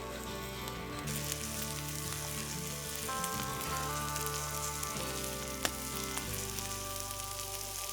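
Food sizzling steadily in a frying pan over a campfire, with one sharp click about two-thirds of the way through.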